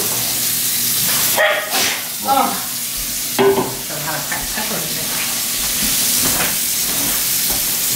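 Scallops frying in hot oil, a steady sizzle, with a few short voice-like sounds in the background between about one and a half and three and a half seconds in.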